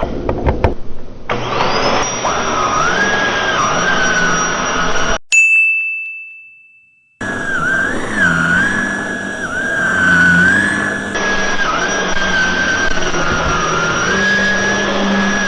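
A few clicks, then a Hoover WindTunnel Air SH40070 canister vacuum starts up with a rising whine and runs, its whine wavering up and down in pitch. About five seconds in the sound cuts off abruptly for a single ringing ding that fades to silence. About two seconds later the vacuum is heard running again.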